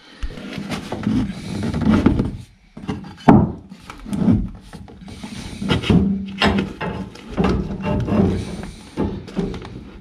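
Irregular knocks, clicks and scraping from black iron gas pipe, a pipe wrench and a wooden block being handled and shifted.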